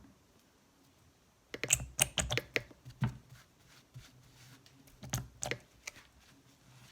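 Quick sharp clicks and taps of small plastic items being handled: a cluster about a second and a half in, then a couple more about five seconds in.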